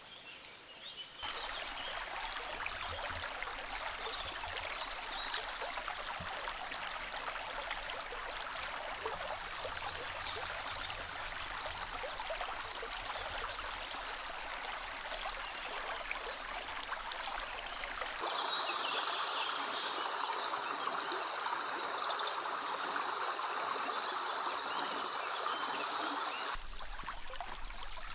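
Running water of a small forest brook, a steady rushing and gurgling. It is made of several takes: the sound changes abruptly about a second in, again around 18 seconds, and near the end.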